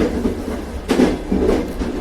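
Train running along the track, a steady rumble with wheel clicks over the rail joints about a second in and again near the end.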